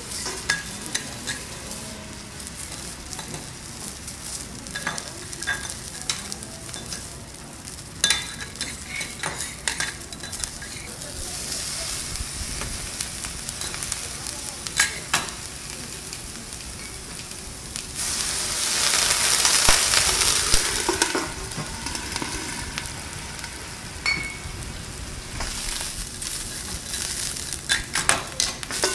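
Vegetables sizzling on a hot teppanyaki steel griddle, with the clicks and scrapes of metal spatulas on the plate. About eighteen seconds in, the sizzling rises to a loud hiss for about three seconds as the vegetables are steamed under a steel dome.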